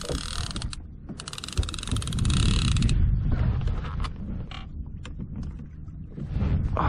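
Fishing reel's drag clicking rapidly as a hooked fish pulls line off, in two runs: one that stops less than a second in and another from about a second to three seconds in. The angler takes it for a shark's run. Wind and water rumble underneath.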